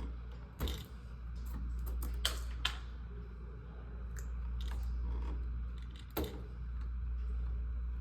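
Scattered light clicks and taps of hand tools and copper wire being handled at a light switch, over a steady low hum.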